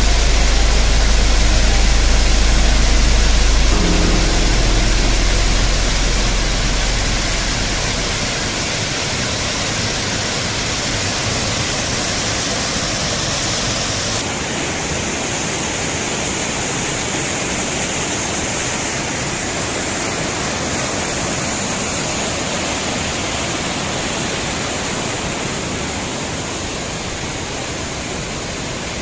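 Waterfall and mountain stream: a steady, dense rush of falling water. A deep rumble under it is loudest in the first few seconds and fades away by about eight seconds in.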